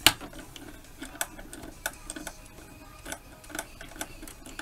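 Small screwdriver turning out a tiny holding screw on the metal bobbin-case hook of an Elna Lotus SP sewing machine: irregular light metal clicks and scrapes, with one sharper click at the start.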